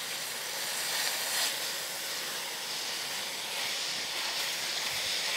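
White wine sizzling and simmering in a hot stainless steel skillet of mushrooms, onion and sun-dried tomatoes as the pan is deglazed: a steady hiss that swells slightly a little over a second in.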